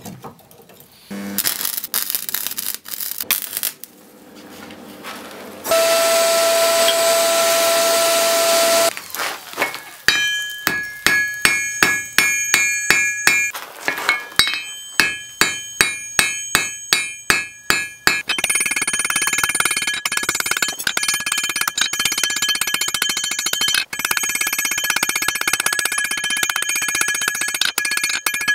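Hand hammer striking a glowing pattern-welded steel bar on an anvil, about two to three blows a second, each leaving a bright metallic ring. Before the hammering comes a loud steady rushing noise with a hum, and after it a denser stretch of noise that keeps the same ringing.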